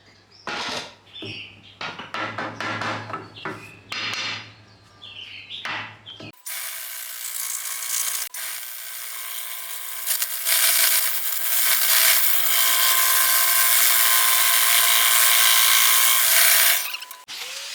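Power tool cutting or grinding wood. It runs in short bursts for the first six seconds, then runs steadily from about six seconds in and stops suddenly near the end.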